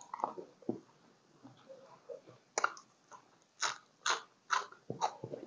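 A person chewing and biting crunchy food close to the microphone: soft mouth sounds at first, then about five sharp crunches from about two and a half seconds in, roughly two a second.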